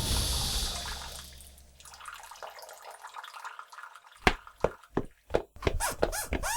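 Water dripping in single drops, about three a second, starting about four seconds in, after a hiss that fades away over the first two seconds.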